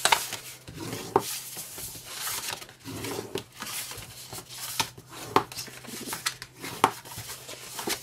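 Cardstock being folded along its score lines and rubbed down with a bone folder: continual paper rustling and rubbing strokes, broken by a few sharp taps.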